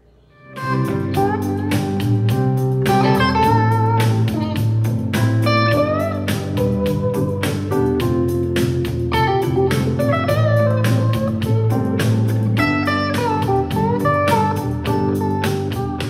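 Guitar-led music with a heavy bass line played back through a portable Bluetooth speaker under test, starting about half a second in after a brief gap.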